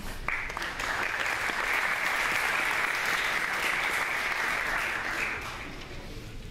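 Audience applause, starting almost at once and dying away after about five seconds.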